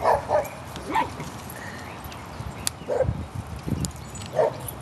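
Dogs barking during play: short, spaced barks, about five in all, scattered through the few seconds.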